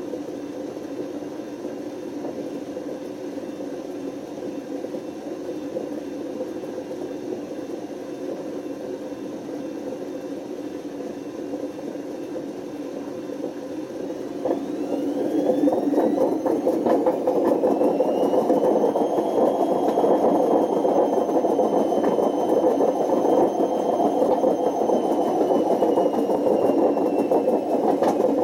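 Panasonic NA127VB6 washing machine with worn-out drum bearings running with a harsh, rough noise. About halfway through the drum speeds up: the noise gets louder and a motor whine rises in pitch, then holds steady.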